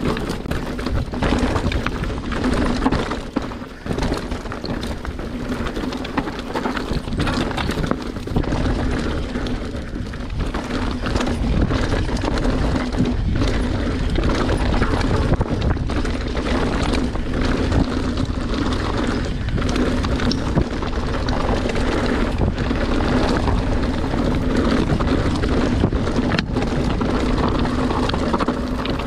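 Mountain bike, a YT Capra, descending a rough, rocky trail at speed: wind rushing over the camera microphone and tyres rolling over rock and dirt, with frequent knocks and clatter from the bike over rough ground and a steady hum beneath.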